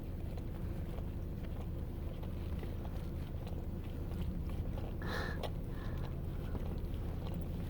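A dog licking soft ice cream from a puppy cone, with small wet clicks, over a steady low hum. A short louder sound comes about five seconds in.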